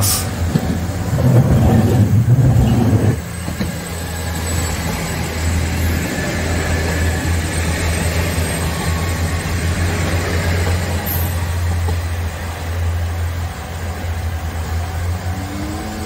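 JR KiHa 47 diesel railcar running past and away along the track, its diesel engine a steady low drone, with a louder rumble in the first three seconds.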